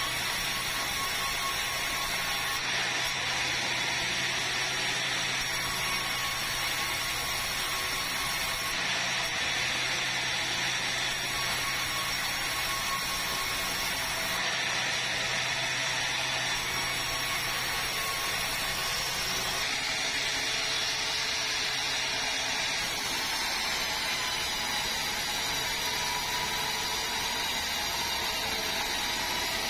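Large sawmill band saw running, its blade cutting through a big red meranti log. A steady machine sound, with a low hum that drops away about three-quarters of the way through.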